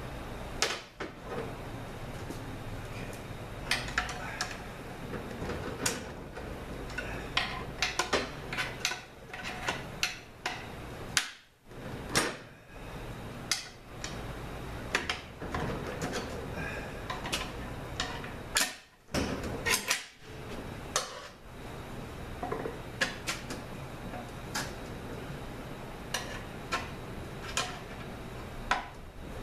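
Screwdriver tips prying and scraping at a stubborn snap ring inside a 5L40E transmission case: many separate sharp metallic clicks and clinks at irregular intervals, over a steady low hum.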